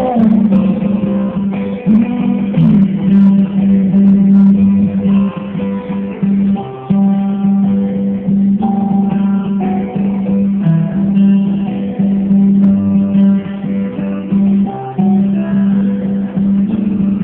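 Instrumental passage of a song: plucked guitar notes over a steady, held low note.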